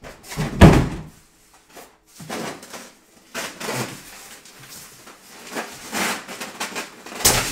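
Large styrofoam packing block holding a sewing machine being slid and lifted out of its cardboard box: scraping, rubbing and squeaking of foam against cardboard, with a heavy thump about half a second in and another sharp knock near the end.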